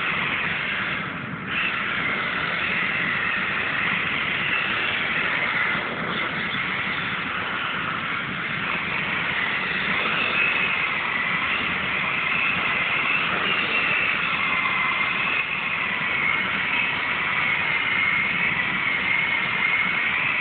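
Traxxas Rally VXL's brushless electric motor whining at speed, its pitch wandering up and down with the throttle, over the hiss of tyres scrubbing on a concrete floor as the car drifts.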